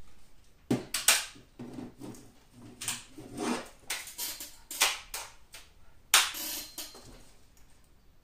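Daisy 880 multi-pump air rifle being readied between shots: a run of clicks and knocks with a few short, duller strokes, the sounds of cocking the bolt and working the pump lever.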